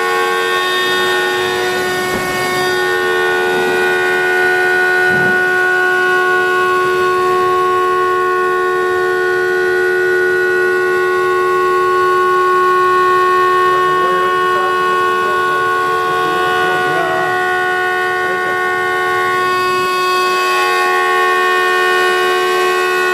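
CNC router spindle running with a steady high-pitched whine of several held tones while milling a guitar neck, with faint wavering changes in the middle as the cut goes on.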